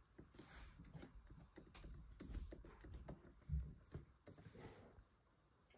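Faint typing on a MacBook laptop keyboard: a run of irregular key clicks that stops about five seconds in.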